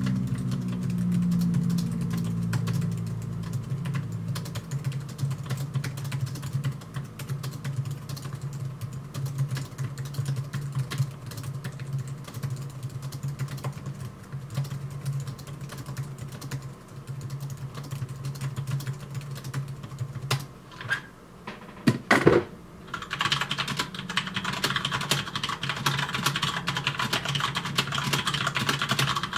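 Typing on an Apple Wireless Keyboard: its low-travel chiclet, dome-membrane keys clicking in quick, continuous runs, with a few louder knocks about three-quarters of the way through.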